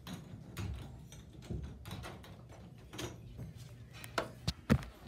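Handling noise from a phone being moved about: scattered light knocks and rustles, with three sharper clicks in quick succession near the end.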